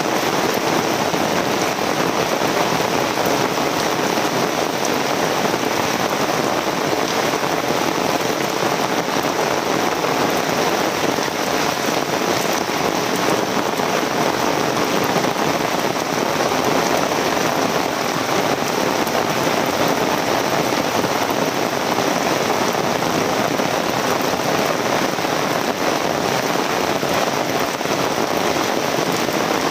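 Heavy rain falling steadily, a dense even hiss of rain on surfaces with no let-up.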